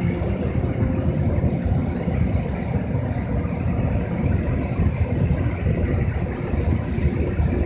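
EH200 twin-section DC electric freight locomotive running at a standstill or crawl, its cooling blowers and traction equipment giving a steady low rumble.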